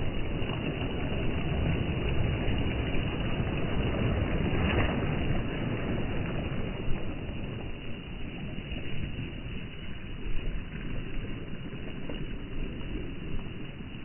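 Small sea waves breaking and washing up a sand-and-pebble shore. The surf swells about five seconds in and eases off through the second half.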